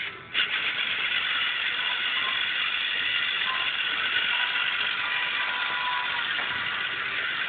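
LEGO Mindstorms NXT robot's servo motors and gear trains whining steadily as the robot drives along.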